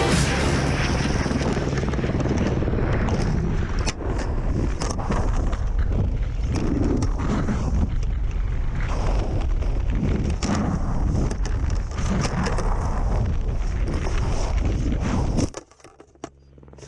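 Heavy wind noise buffeting the microphone, cutting off abruptly about fifteen seconds in and leaving only a faint steady low hum.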